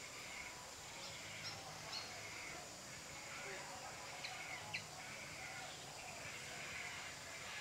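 A few short, high animal chirps scattered over quiet outdoor background noise.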